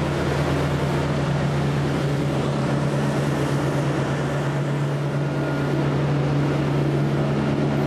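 Motor cruiser's engines running steadily at cruising speed, a constant low drone, with the rush of water along the hull and wind noise.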